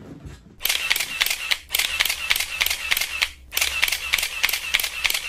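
Camera shutter firing in burst mode: rapid clicks, about seven a second, in three runs with short breaks between them.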